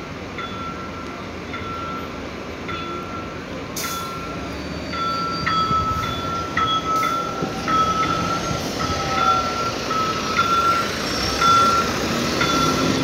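City bus traffic moving past, with a short electronic beep of one steady pitch repeating roughly twice a second throughout. The vehicle noise swells near the end as a bus draws close.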